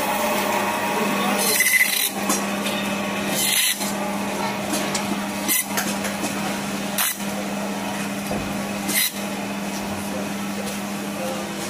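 Electric band saw running with a steady hum while its blade rasps through a large rohu fish, cutting scales and bone. A few sharp knocks or clicks come every second or two.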